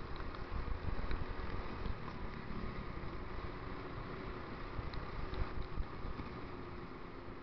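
Motor scooter being ridden, heard through a waterproof action-camera case: a muffled, steady engine drone under low wind rumble and tyre noise on a wet road.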